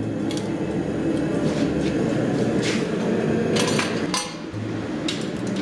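Metal-on-metal strikes and clinks of a blacksmith's hammer and tools on an anvil and hot steel, about six, irregularly spaced, over a steady low hum.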